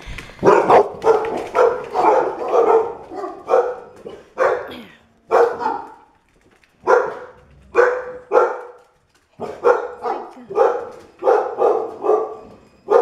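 Alapaha Blue Blood Bulldogs barking repeatedly, about two barks a second, with short breaks about six and nine seconds in.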